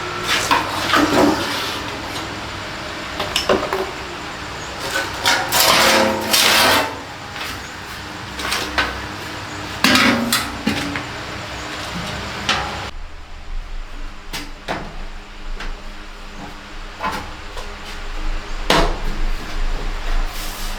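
Irregular knocking and clattering, with a few louder scraping bursts, from hands and tools working on a front-loading washing machine.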